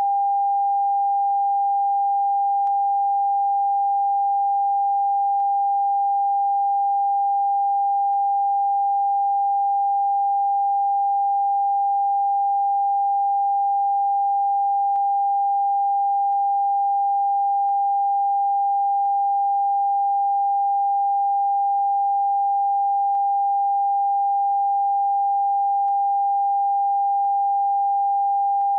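Continuous TV test-card tone, the end-of-broadcast sine-wave beep: one pure steady pitch just under 1 kHz, held without a break or change. It marks a station off the air after the close of programming.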